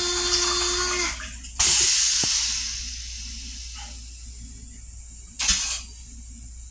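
M7 railcar toilet flushing into its stainless-steel bowl. A loud hiss of spraying water and air carries a steady tone and stops about a second in. A second spray starts shortly after and fades away, and a brief hiss follows near the end.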